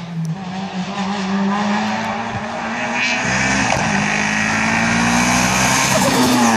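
Race car's engine at full throttle, coming closer and growing louder as it accelerates uphill. Its note drops at gear changes about half a second in and about three seconds in, and climbs between them.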